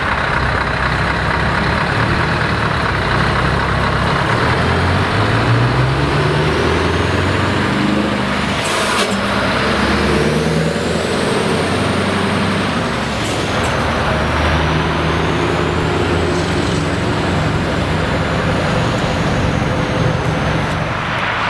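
Scania V8 truck engine with open exhaust pipes pulling away, its note rising and falling through gear changes. A couple of short hisses, about 9 and 13 seconds in, and a faint high whistle rises and falls above the engine.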